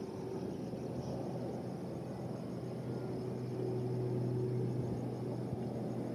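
Distant Fokker 100 jet with Rolls-Royce Tay turbofans, rolling slowly on the ground with its engines at low power: a steady rumble with a low hum that swells a little in the middle. Insects chirp faintly throughout.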